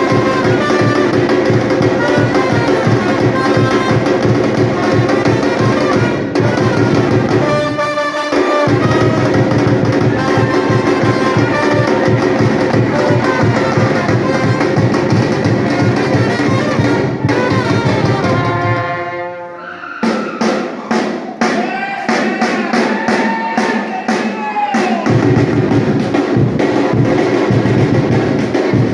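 Batucada percussion group playing a loud, driving drum rhythm with music. About twenty seconds in, after a rising sweep, the deep drums drop out for a few seconds, then the full beat comes back.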